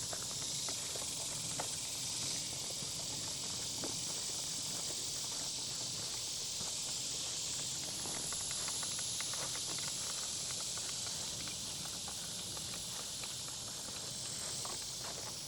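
Steady high-pitched drone of insects, with scattered crunching footsteps on the trail.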